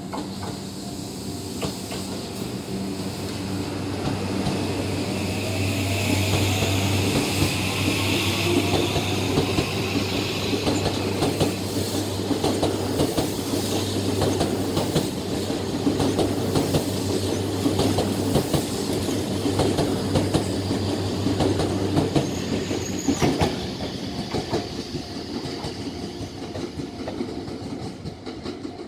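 Tokyu 2020 series electric train pulling out of the station, its motors giving a rising whine as it picks up speed. Wheels clack over the rail joints as the cars pass, and the sound fades near the end as the train moves away.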